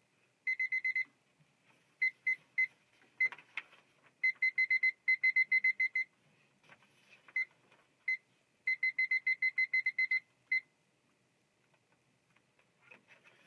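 Electronic beeping: a short, high beep repeated rapidly, about eight a second, in irregular runs of a few to about ten beeps with pauses between, and a light knock about three seconds in.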